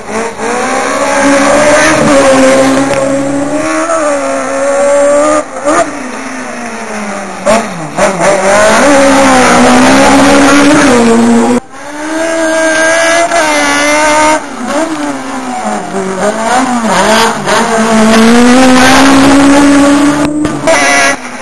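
Rally cars racing past at full throttle, one after another, the engine note climbing and dropping as they rev, change gear and brake. The sound breaks off suddenly several times between cars.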